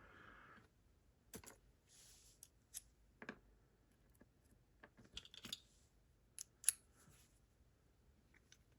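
Faint, scattered small clicks and brief light scraping from a pin-tumbler lock being taken apart by hand, with its small metal parts handled.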